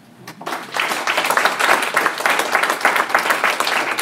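Audience applauding: many hands clapping, starting about half a second in and swelling to full strength within a second.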